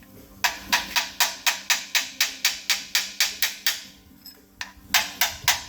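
A hammer chipping plasma-cut slag off the edges of small steel gussets: quick, even metal strikes, about four a second. They pause briefly about four seconds in, then start again.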